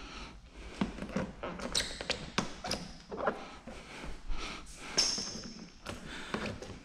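Irregular handling sounds of wet clear paint protection film being pulled and stretched by hand over a car bumper: scattered soft knocks, rustles and crinkles, with a short squeak about five seconds in.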